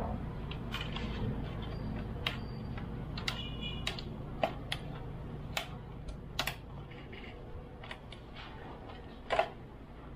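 Irregular clicks and light knocks of hands handling a foam RC model plane's fuselage, its plastic battery hatch and its wired LiPo battery pack, with one louder knock near the end.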